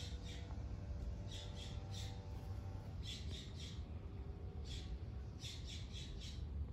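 A bird calling in short, sharp chirps that come in quick clusters of two to four, over a steady low rumble.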